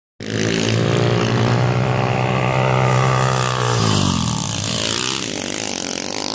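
Small dirt bike engine running at a steady high pitch, then dropping in pitch about four seconds in as the throttle is eased off.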